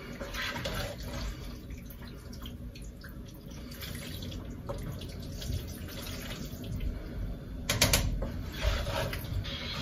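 Spaghetti in sauce being stirred in a pan: wet squelching with a utensil scraping against the pan, and a few sharp clacks of the utensil on the pan just before eight seconds in.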